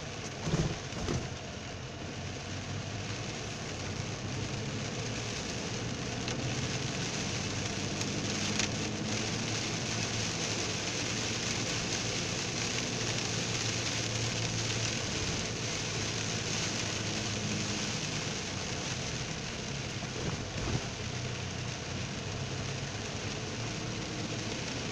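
Heard from inside a moving car in heavy rain: a steady hiss of rain and wet tyres on a flooded road over the low hum of the car. There are a couple of short knocks about a second in and again near the end.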